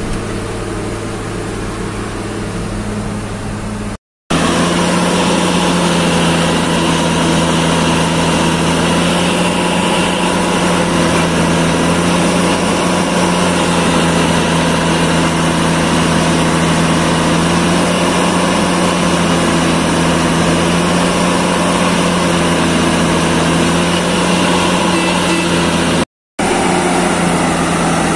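Duomatic track tamping (packing) machine running, its diesel engine giving a steady hum. About four seconds in, after a brief silent break, it comes in louder and noisier with a strong steady low tone; there is another brief break near the end.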